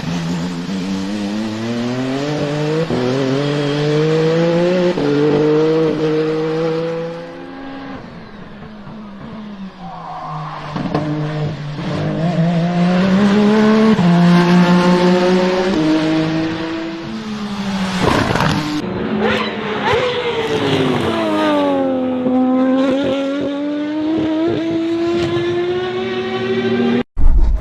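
A sports car's engine and loud exhaust revving and accelerating. The pitch climbs, drops back sharply and climbs again several times, like gear changes under hard acceleration.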